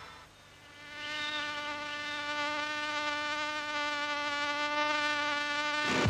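A steady buzzing drone held at one unchanging pitch, rich in overtones. It comes in about a second in and cuts off abruptly at the end.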